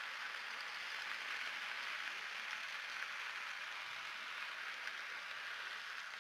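Chicken pieces sizzling steadily in very hot oil in a grill pan as they sear and brown.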